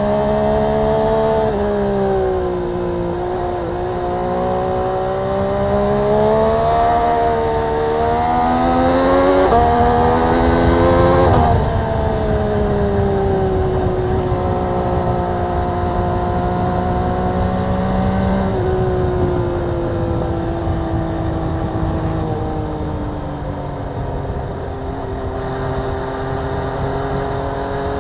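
MV Agusta Brutale 800RR's three-cylinder engine running under way, heard from on the bike with no wind noise. Its pitch climbs for about ten seconds as it accelerates, drops sharply just under halfway through, and then eases down slowly.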